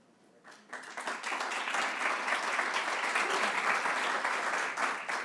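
Audience applauding: the clapping begins about a second in, holds steady and dies away near the end.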